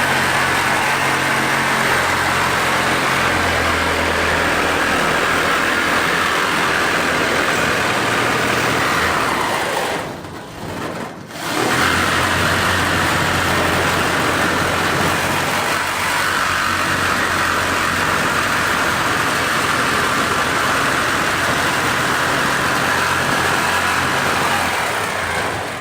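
Power cutting tool running steadily as it cuts through the steel roof panel of a car. It stops about ten seconds in and starts cutting again a second or so later.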